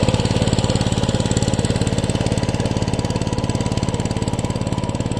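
Power tiller's single-cylinder diesel engine running steadily, with a rapid, even pulse of firing strokes.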